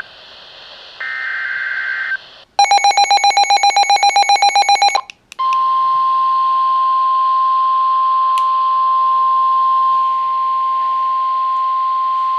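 Warbling two-tone data burst of a NOAA Weather Radio SAME alert header about a second in. It is followed by a rapid electronic beeping, about eight beeps a second for two seconds, then the steady single-pitch 1050 Hz NOAA Weather Radio warning alarm tone, which signals that a warning message is about to be broadcast.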